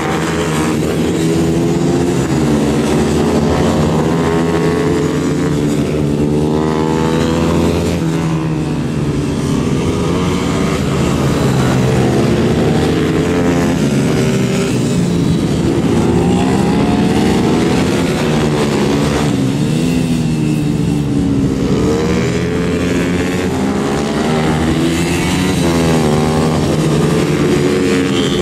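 Several small four-stroke race motorcycles running hard together, their engine notes repeatedly climbing as they rev out and dropping at each gear change and corner.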